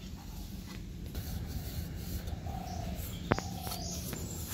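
A dove cooing twice, two short, steady, low notes in the background, with a single sharp click about three seconds in as the steel cake tin is handled.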